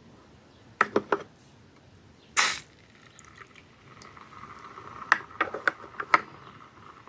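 Light clicks and knocks of handling, a short loud hiss about two and a half seconds in, then liquid trickling and dripping with a few more clicks.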